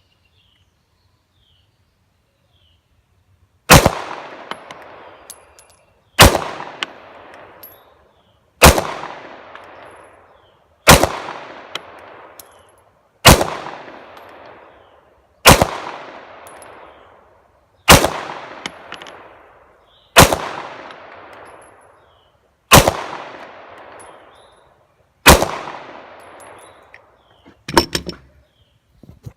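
A 9mm Glock 17-pattern pistol on a Polymer 80 frame fired ten times at a slow, even pace, about one shot every two and a half seconds, each loud crack trailing off in a long echo. Near the end there is a brief cluster of clicks.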